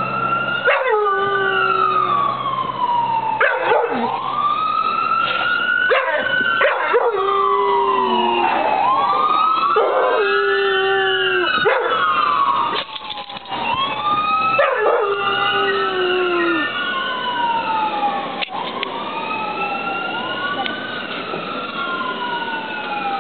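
Emergency-vehicle sirens wailing, several overlapping, in long rising and falling sweeps, while a yellow Labrador retriever howls along with them.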